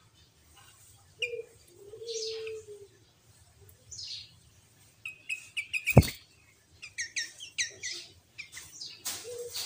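Sooty-headed bulbul (kutilang) song: scattered quick chirps and runs of short whistled notes. A low cooing call sounds twice, about a second in and near the end, and one sharp click comes about six seconds in.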